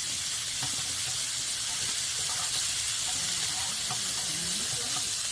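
Pork belly sizzling on a hot grill plate on a wood-burning stove: a steady, even frying hiss.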